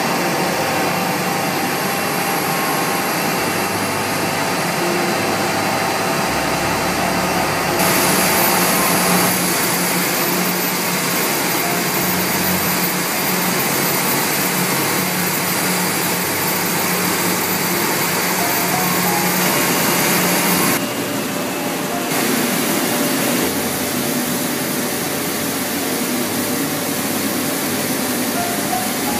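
Film slitting and laminating machines running, a loud steady mechanical noise with a low hum. The noise changes abruptly in character several times.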